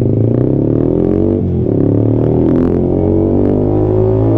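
Yamaha sport motorcycle's engine under way. The revs rise, drop sharply at an upshift about a second and a half in, then climb steadily again in second gear.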